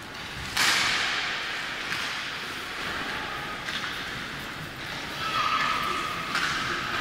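Ice hockey play: skate blades scraping and spraying across the ice, with a sudden hissing scrape about half a second in that fades away, more scrapes later, and a short steady tone about five seconds in.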